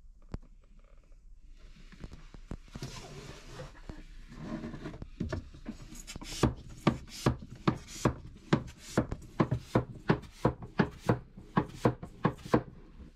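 Oily bilge sludge being pumped out through a suction hose: a rough slurping hiss, then a run of regular sharp slurping strokes, about two and a half a second, as the pump works oil and air up the hose.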